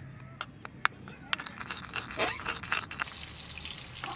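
A spoon clinking against a bowl as spice pastes are stirred together with a little water. Short sharp clicks come one at a time, the sharpest about a second in, with a quicker run of them around the middle.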